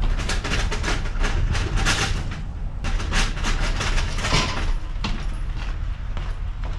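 Two-wheel hand truck rolling over a ridged metal trailer ramp, its wheels and frame clattering in a fast, uneven rattle, over a steady low rumble.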